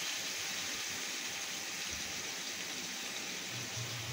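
Steady hiss of the mutton kosha masala sizzling and bubbling in a hot kadai with water just added.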